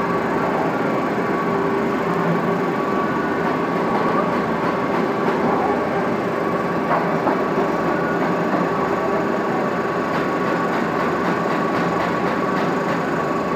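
CTC (crush-tear-curl) tea-processing machines running: electric motors and belt-driven rollers making a steady mechanical din with a constant hum and a higher whine over it.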